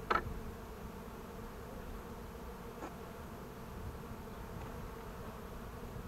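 Honey bees of an opened hive buzzing in a steady hum during a frame inspection, with a brief click near the start.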